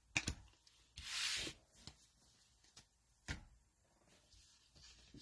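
Trading cards being handled: a few light clicks and a brief swish as cards slide, about a second in.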